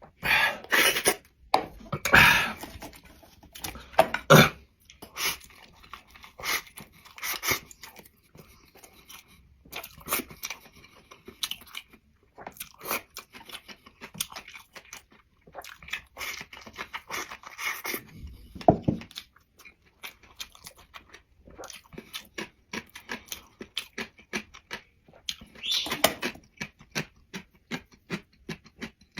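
A person eating: close-up chewing with many quick crunches and wet mouth smacks, louder in the first few seconds.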